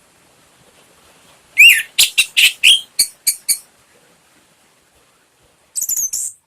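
Orange-headed thrush (anis merah) in full, open song. After a short pause comes a phrase that opens with a downslurred whistle and runs into a quick series of about seven sharp, high notes. A short burst of high notes follows near the end.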